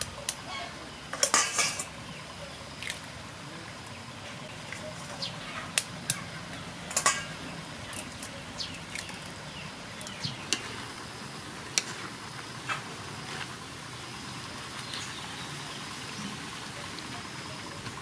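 Eggs being cracked on the rim of a metal wok, sharp taps and clicks every second or two, loudest in a quick cluster about a second and a half in. Underneath is a steady sizzle of bamboo shoots and shrimp frying.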